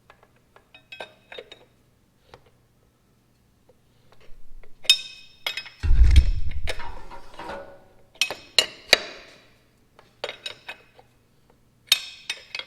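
Metal tools and parts clinking and clanking against each other in a string of sharp, separate strikes during hands-on mechanical work. One heavier clunk comes about six seconds in.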